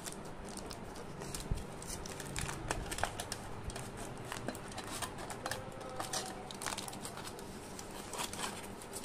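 Foil wrapping on a chocolate bar crinkling and crackling in irregular short bursts as fingers peel it open.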